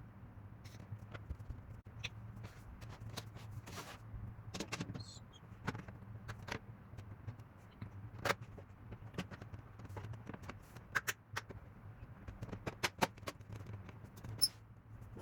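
Scattered clicks and taps of small parts being handled during work on a PS4 Pro console, over a steady low hum.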